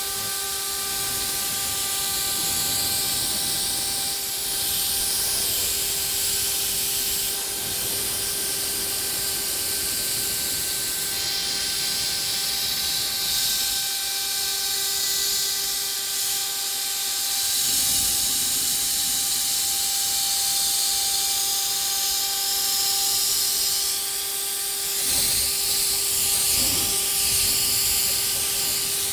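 JINKA 3827 CNC router spindle whining steadily as its end mill cuts 3 mm Dibond aluminium composite panel, with a hissing cutting noise that rises and falls as the tool moves along the contour.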